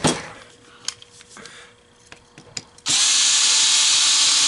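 A few light clicks of small parts being handled, then about three seconds in a power drill/driver starts and runs at a steady speed, most likely backing out screws to take the validator's rollers off.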